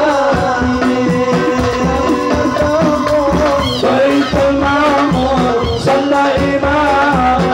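Live sholawat music: a singer's melody over a band with a steady drum beat.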